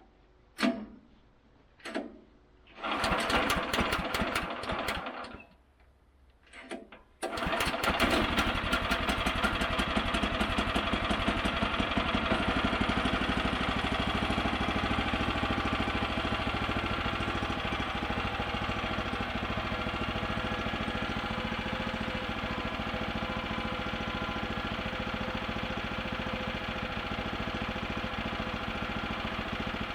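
Sawmill's small gasoline engine being started cold on choke: two short cranks, a brief run of about two seconds that dies, one more crank, then it catches about seven seconds in and keeps running steadily.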